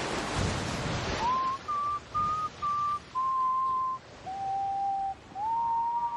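Ocean waves wash for about a second. Then a pure, whistle-like melody begins: about seven held notes, several of them sliding up into pitch, with the last note held long.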